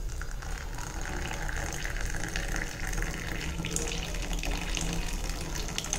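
Just-boiled water pouring steadily from an electric kettle into a small teacup onto instant masala chai premix powder.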